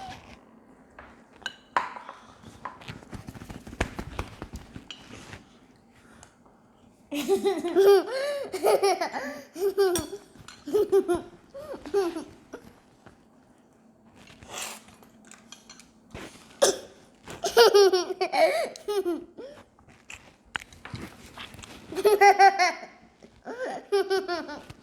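A child laughing in repeated high-pitched bursts, starting about seven seconds in, after a few seconds of light clicks and taps from eating at the table.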